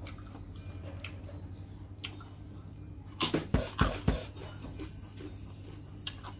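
A person eating: faint chewing and mouth clicks, then a quick series of hard puffs of breath blown out through pursed lips around the middle, over a steady low hum.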